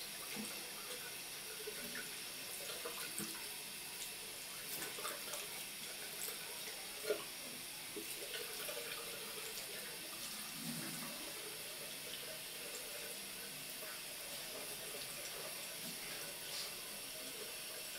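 A thin stream of tap water running steadily into a ceramic bathroom sink and splashing where a cat paws at it and puts its head under it. There is one short sharp knock about seven seconds in.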